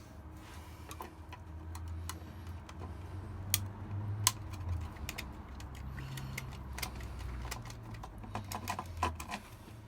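Scattered small clicks, taps and light rattles of hands working on household socket wiring, fitting the earth wires and handling the plastic socket and tools, over a low rumble.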